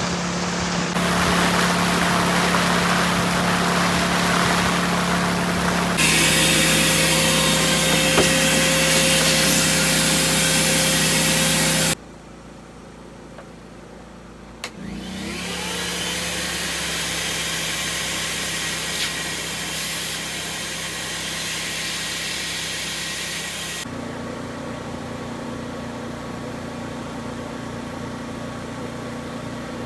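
A power tool runs with a steady whir over a low hum. The sound cuts abruptly several times and drops much quieter for a few seconds near the middle.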